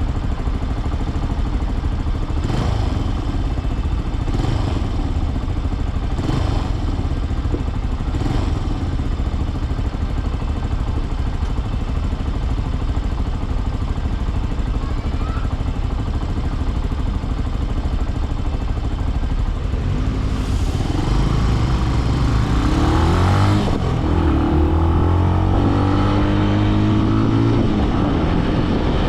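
Benelli BN125's single-cylinder engine ticking over at low speed for about twenty seconds, then accelerating from about 20 s in, its pitch rising and dropping in steps as it shifts up through the gears.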